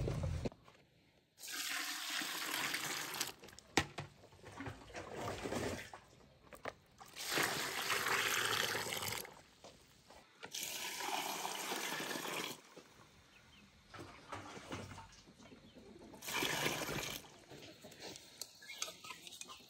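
Water splashing and pouring in several separate bursts of a second or two, with short quiet gaps between them.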